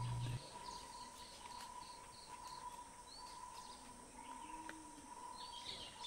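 Faint forest ambience of insects: a high, evenly pulsing insect call, about three pulses a second, over a steady insect drone. A few short bird chirps come near the end, and a low hum drops out just after the start.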